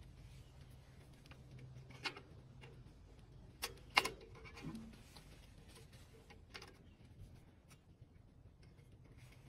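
Light metallic clicks and taps from hands fitting the gears and parts of a tractor engine's gear-type oil pump. The sharpest click comes about four seconds in.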